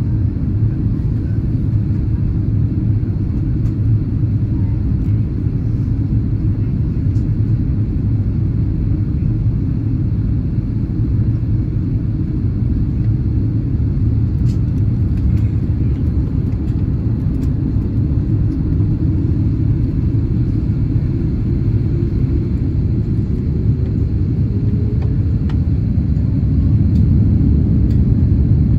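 Steady low rumble of engine and airflow noise inside the cabin of an Airbus A330-300 descending on approach to land. About twenty seconds in, a faint tone rises briefly over the rumble.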